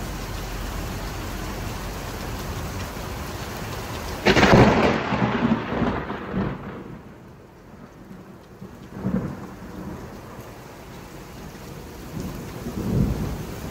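Heavy thunderstorm rain falling steadily. About four seconds in, a loud, close clap of thunder breaks out and rumbles away over a couple of seconds. Two softer rolls of thunder follow, one near the middle and one near the end.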